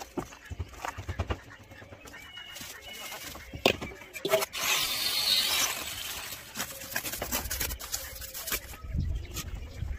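Mason's steel trowel scraping and knocking as wet concrete is placed and spread on a brick stair step. There are short knocks throughout, a sharp slap a little past a third of the way in, and a rough scraping stretch just after halfway.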